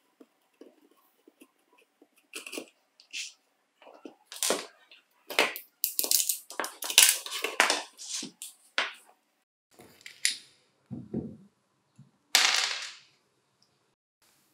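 A jigsaw's universal motor being pried out of its plastic housing with a screwdriver and handled: a run of irregular clicks, cracks and scrapes of metal on plastic, with a duller knock about eleven seconds in.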